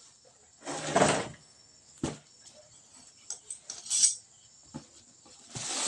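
Rustles and small knocks from handling a plastic-wrapped cardboard box, in short separate bursts: a longer rustle about a second in, a few light clicks, and another rustle near the end.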